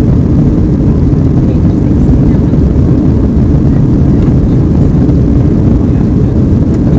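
Steady, deep roar inside a jet airliner's cabin during the climb after take-off: engine and rushing-air noise heard by the window seat.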